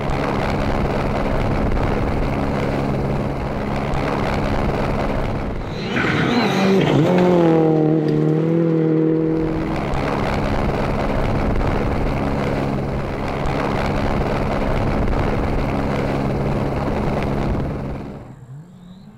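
Rally car engines running hard at speed. Around six to nine seconds in, one engine's pitch dips and then rises again, and the sound falls away near the end.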